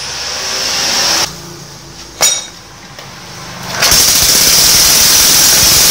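Small Honda single-cylinder four-stroke stationary engine, converted to CDI ignition and started on partial choke, catches about four seconds in and runs loud and steady. A sharp click comes just before it catches.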